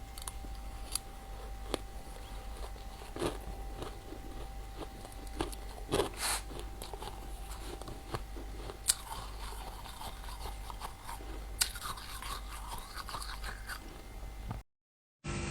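A person biting and chewing freezer frost ice: scattered crisp crunches over a low, steady hum. The sound cuts out briefly near the end.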